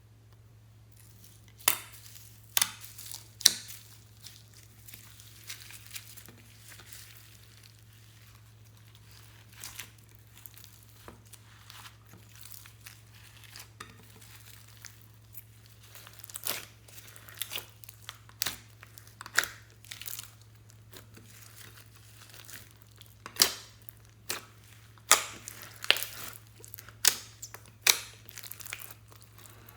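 Slime being squished and stretched by hand, making irregular sharp crackles and pops, some loud, often in quick clusters.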